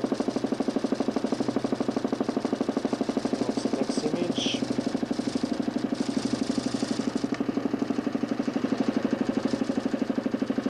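The DC motor and spinning 40 cm plywood Nipkow disc of a homemade mechanical television running steadily, a constant mechanical whir with a rapid, even pulsing.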